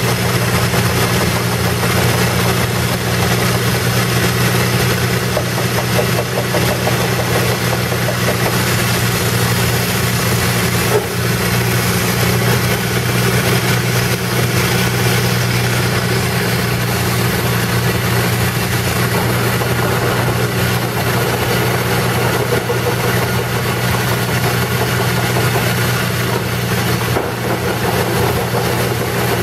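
Airmobil 432 pneumatic drilling rig running as it drills into a slope, air and dust blowing from the hole. It is a steady, loud, unbroken noise with a constant low hum beneath it.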